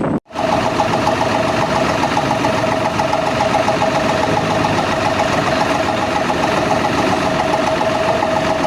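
Bus engine idling steadily, with a constant whine and an even, rhythmic ticking, after a brief cut to silence just after the start.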